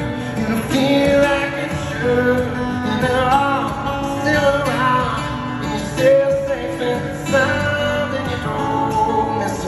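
A man singing to his own acoustic guitar in a live solo performance, amplified through an arena sound system and heard from the audience seats.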